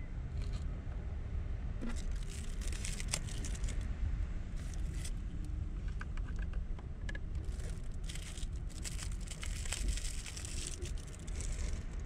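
Thin plastic crinkling and tearing in short spells, with small clicks, as a drinking straw is unwrapped and pushed into a paper drink carton.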